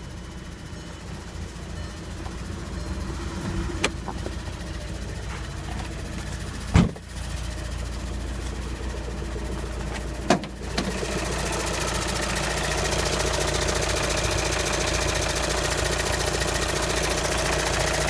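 2013 VW Passat TDI diesel engine idling in neutral, with a couple of sharp knocks about 7 and 10 seconds in. From about 11 seconds in it grows louder, with a fast, even ticking from where the engine meets the manual transmission: a clicking that is heard with the foot off the clutch and goes away when the clutch pedal is pressed.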